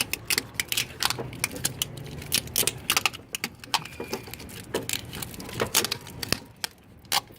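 Rapid, irregular light clicks and clatter of metal parts being handled: socket wrench extensions and the end of a heavy power cable knocking together as they are fed toward the firewall.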